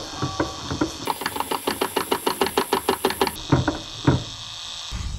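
Lexus SC430 hydraulic brake booster assembly (brake master cylinder) working as the brake pedal is pumped with the ignition on. Irregular clunks, then a fast even rattle of about ten pulses a second with a high hiss for a couple of seconds in the middle, then a few more clunks.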